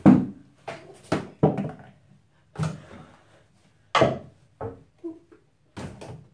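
Irregular knocks and clatters, about eight in six seconds, of hard objects being knocked or set down, echoing in a small tiled bathroom.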